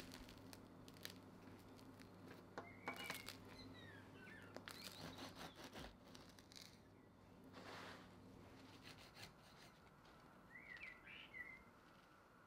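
Crusty baguette crackling under the fingers and as a serrated bread knife saws through it: faint scattered crisp crackles and a few sawing strokes. Small birds chirp faintly in the background, once early on and again near the end.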